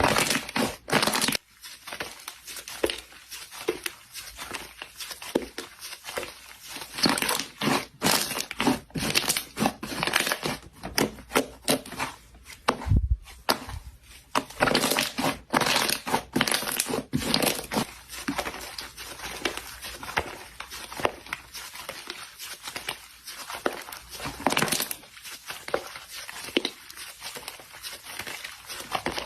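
Slime being squeezed, poked and stretched by hand, giving a dense run of irregular crackles, clicks and pops.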